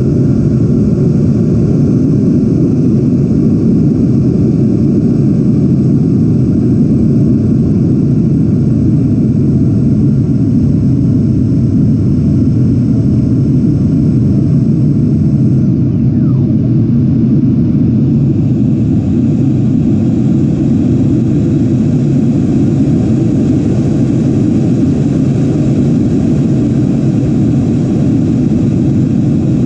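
Steady, even rush of air and electric ducted fan noise from a 90mm EDF Freewing A-10 Thunderbolt II RC jet in flight, picked up by a camera inside the model's cockpit, mostly low in pitch.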